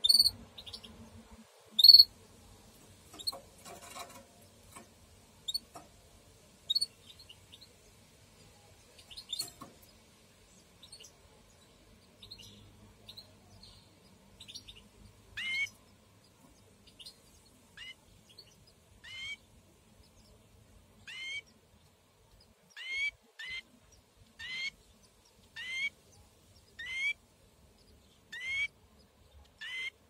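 Canary chirps in the nest: scattered sharp, high chirps through the first half, then from about midway a run of repeated calls, roughly one a second and sometimes two close together.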